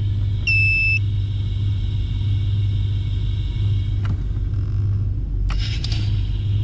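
Chevrolet 350 (5.7 L) V8 idling, with a steady hiss from the power brake booster while the brake pedal is held: a vacuum leak, a dead ringer for a leaky brake booster. The hiss stops with a click about four seconds in. A short beep sounds about half a second in, and a brief rustle comes near the end.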